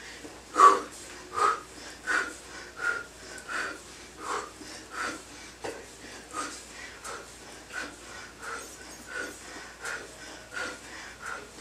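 A woman's hard, rhythmic breathing while doing bicycle crunches: short, breathy exhales at an even pace of about one every 0.7 seconds, one with each twist of the crunch.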